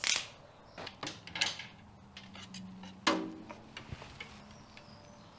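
Telescoping pickup tool clicking and scraping against metal engine parts as it is worked down into the engine bay to fish out a dropped bolt: a few sharp knocks and clicks, the loudest at the start and about three seconds in.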